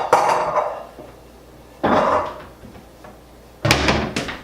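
Kitchen clatter of dishes and cupboard doors as dishes are put away: three sharp knocks, about two seconds apart, each ringing briefly.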